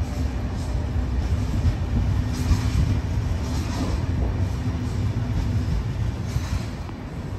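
Passenger coaches, including a ZSSK Bmz compartment coach, rolling slowly along the platform track: a steady low rumble of wheels on rails, with a few brief higher-pitched swells.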